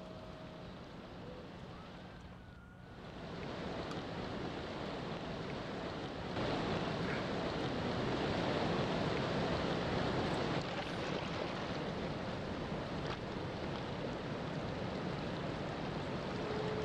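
Ocean surf: a steady rush of breaking waves that grows louder about three seconds in and again around six seconds in. A held musical tone fades out right at the start, and another comes in near the end.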